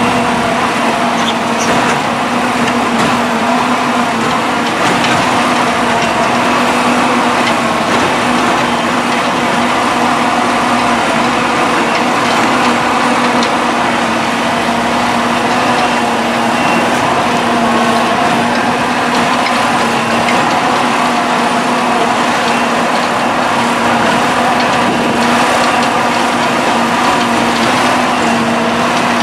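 Engine of a rail-mounted track maintenance machine from a tie gang running with a steady drone.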